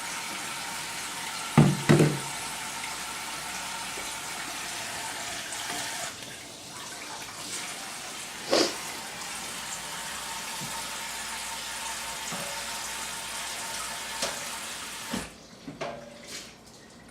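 Water running steadily, then cutting off suddenly near the end, with a couple of knocks about two seconds in and another near the middle.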